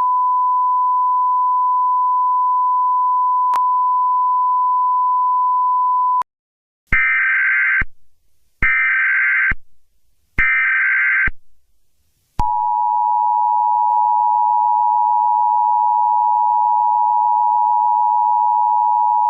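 Emergency Alert System broadcast tones. First a steady single high test tone for about six seconds. After a brief silence come three short bursts of the warbling digital SAME header data, each about a second long. Then the two-tone EAS attention signal starts and holds steady to the end.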